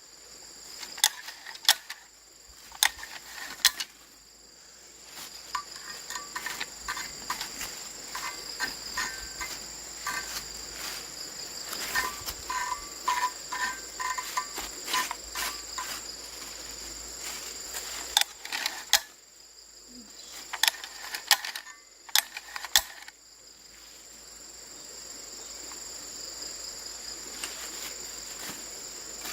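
Sharp metallic clicks and clinks in irregular clusters, like tools and metal parts being handled during repair work on a plow, some ringing briefly. Behind them is a steady high-pitched chirring of crickets or other insects.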